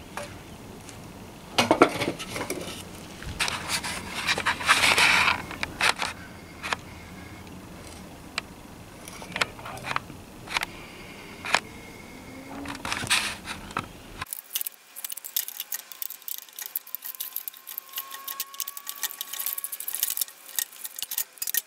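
A metal scrollwork clock frame clanking, rattling and scraping as it is handled and shifted on a wooden slab, in irregular bunches of knocks. About two-thirds of the way through the sound changes to a fast run of small sharp metal clicks as pliers work at the clock's central hub.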